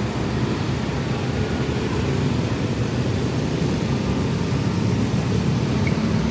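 Low, steady engine and road rumble of a large bus passing close by. No horn sounds.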